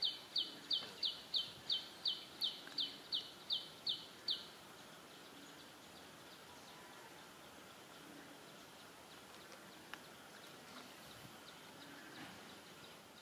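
A bird calling a quick series of about a dozen short high notes, each falling in pitch, about three a second, stopping about four and a half seconds in. After that only a faint steady outdoor background with a few soft ticks.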